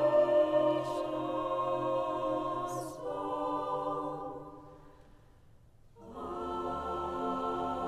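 Mixed choir singing slow, sustained chords. A chord taken about three seconds in fades away almost to silence, and a soft new chord enters about six seconds in.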